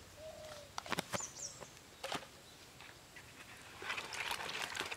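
Outdoor birds giving short chirps, with a few sharp clicks and knocks from plastic containers being handled, then a louder rustling scrape near the end.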